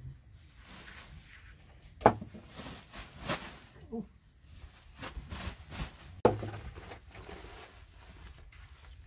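Dry poultry litter being scooped and poured into a woven plastic sack, with rustling and scraping as the sack is handled. Two sharp knocks stand out, about two seconds and six seconds in.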